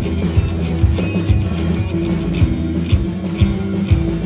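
Live rock band playing an instrumental passage without vocals: a steady drum beat of about two hits a second over bass and electric guitar.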